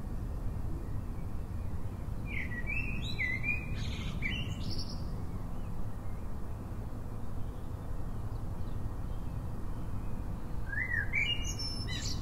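A songbird singing two short bursts of quick chirping notes, about two seconds in and again near the end, over a steady low background rumble.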